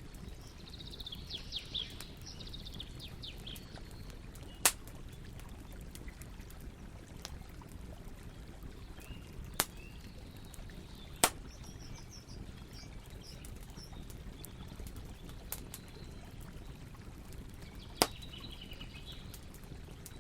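Campfire burning with a steady low crackle and four sharp pops of burning wood. Birds chirp briefly at the start, in the middle and near the end.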